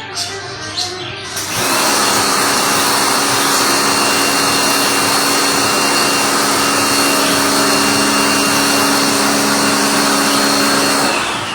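A small electric-motor appliance switches on about a second and a half in and runs steadily with a high whine, then winds down near the end, its pitch falling.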